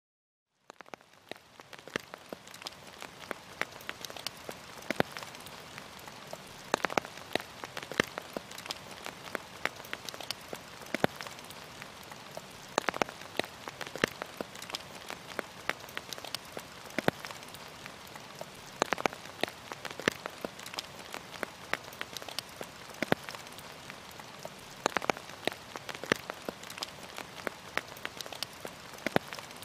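Rain falling steadily, an even hiss with many irregular drops tapping sharply on a surface; it fades in from silence within the first second.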